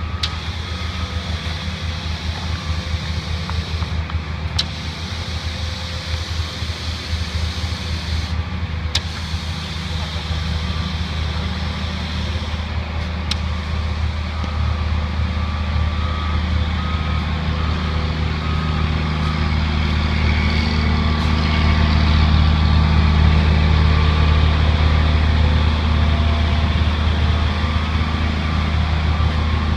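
Diesel engine of a concrete pump truck running steadily under load, a low drone that grows louder about halfway through, with a few faint clicks.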